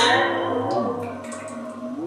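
Waterphone's stainless steel rods struck, giving ringing metallic tones that waver and bend in pitch as the water inside shifts, with a couple of lighter taps.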